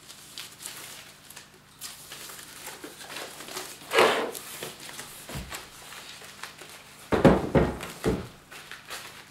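Plastic packaging wrap rustling and crinkling as it is pulled off a soundbar, with a loud rustle about four seconds in. A louder cluster of rustles and low knocks comes about seven to eight seconds in as the wrapped bar is handled on the table.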